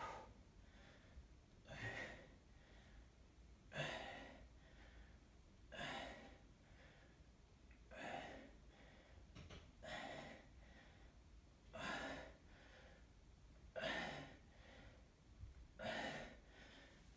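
A man's heavy breathing through a set of bent-over barbell rows: a short, forceful breath with each rep, about every two seconds.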